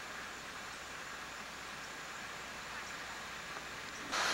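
Steady, faint background hiss with no distinct sound in it. Near the end it jumps suddenly to a louder hiss.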